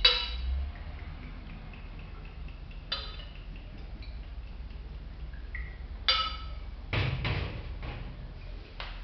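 Glassware being handled: a glass bottle clinking against a glass test cylinder, a few sharp clinks with a short ringing, about three seconds apart, then duller knocks as the bottle is set down.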